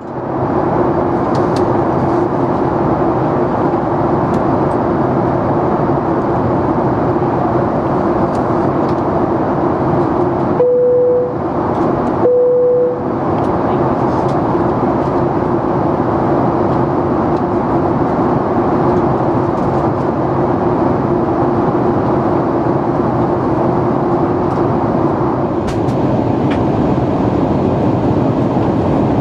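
Steady cabin noise inside a Boeing 737 MAX 8 on approach, heard from a window seat beside the wing: the rush of airflow and the CFM LEAP-1B engines, with a steady hum under it. Near the middle the rush briefly drops away under two short steady tones.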